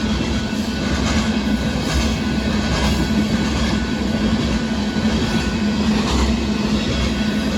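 CSX freight train of gravel hopper cars rolling past: a steady, loud rumble with occasional wheel clacks.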